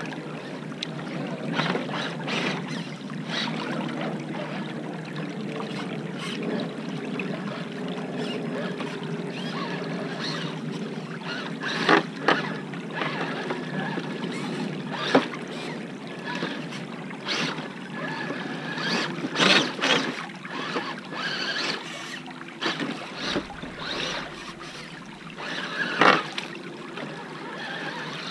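Water running over stones in a shallow creek, with irregular splashes and knocks as a Traxxas TRX-4 radio-controlled crawler truck drives through the water and over rocks. The sharpest knocks come about 12 seconds in and near the end.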